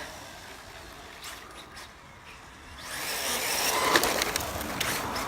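HPI RS4 Sport RC car with a brushless motor driving on the road surface: faint at first, then from about three seconds in a louder whir of motor and tyres, with a few clicks.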